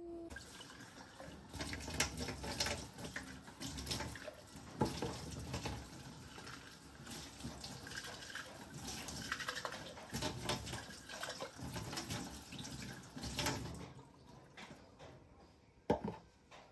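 Plastic baby bottles being rinsed at a stainless-steel sink: water splashing and running, with frequent knocks of the bottles against the sink. It quietens after about 14 s, and a sharp knock near the end is a bottle set down on the sink edge.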